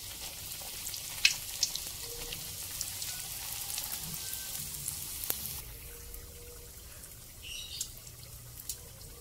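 Spring rolls frying in hot cooking oil: a steady sizzle with scattered sharp pops as more rolls are laid into the oil. The sizzle eases a little past halfway.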